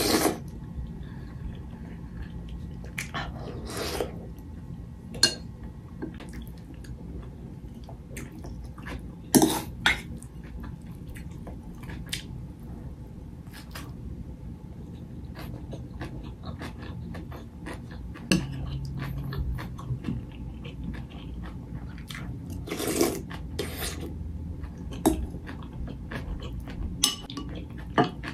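Spoon clinking and scraping against a ceramic bowl and a food container, in scattered sharp clicks, with chewing in between.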